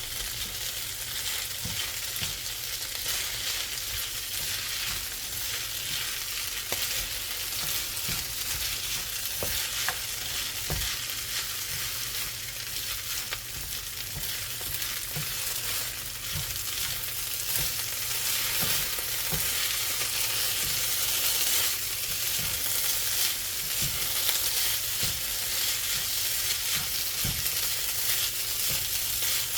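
Fried rice sizzling in a pan while it is stirred, with the utensil scraping and clicking against the pan now and then.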